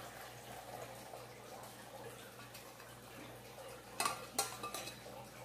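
Faint trickle of palm sugar syrup poured from a stainless pan through a mesh strainer into a plastic jug, then about four seconds in, three sharp metal clinks from the pan and strainer.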